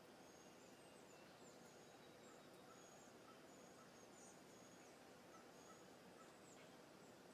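Faint outdoor ambience with a small bird's short, thin, high chirps repeating about every half second.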